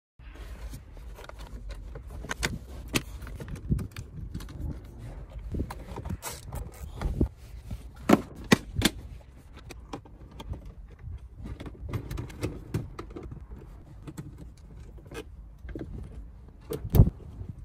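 Plastic interior trim and the glove box of a car's dashboard being handled and clipped back into place: irregular clicks and knocks, with a sharp knock near the end.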